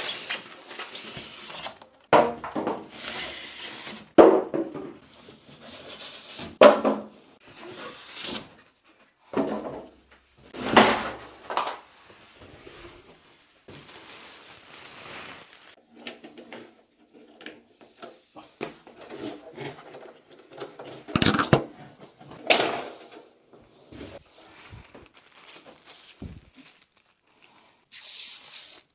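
Unpacking: a cardboard box being opened and pulled about, a clear plastic bag rustling and crinkling as it is stripped off an electric radiator heater, with a few sharp knocks and thumps as the parts are handled.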